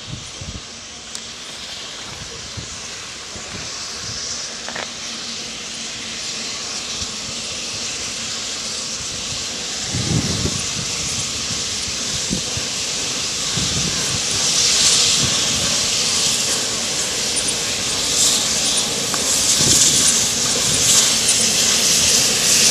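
Peppercorn A1 Pacific steam locomotive 60163 Tornado approaching, its steam hiss growing steadily louder as it draws near, with a few brief low thumps.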